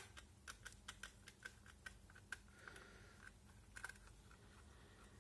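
Faint, quick clicks of a screwdriver backing a screw out of a 3D-printed plastic case. The clicks come about four a second for the first two seconds, then more sparsely.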